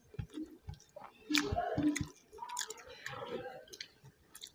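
Close-up mouth sounds of a person eating mutton kosha, a spicy meat curry: irregular wet chewing and smacking with small clicks, busiest after about a second.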